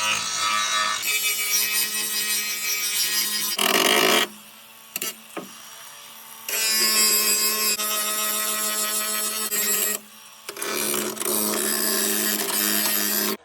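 Power grinder working the sheet-steel floor of a car's trunk, a harsh running whine in bursts. It drops away about four seconds in for a couple of seconds, with two light knocks, then runs again, with a brief break near the end.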